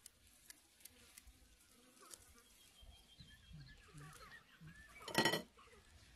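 Faint clicks of a knife cutting fresh greens in a metal bowl, with birds chirping faintly, then a short loud bleat from a farm animal, a goat, about five seconds in.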